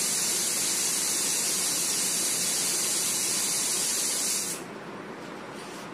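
A steady, loud high-pitched hiss that cuts off suddenly about four and a half seconds in.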